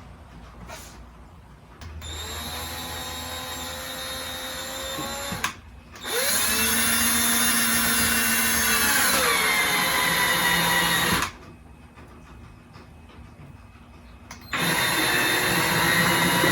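Power drill driving 2.5-inch exterior wood screws into a board with no pilot hole, in three runs. In the long, loud middle run the motor's whine drops in pitch as it slows under load.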